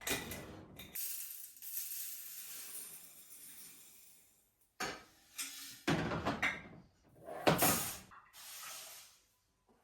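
Kitchen cookware being handled while a meal is started. There is a fading hiss for a few seconds, then a run of clunks and clatters from pots, lids and dishes.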